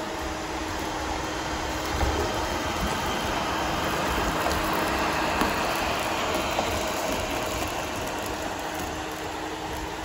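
iLife A10 robot vacuum running across a hardwood floor, its side brush turned down to 5% speed: a steady motor and suction whir that grows louder as it passes close, then eases off near the end.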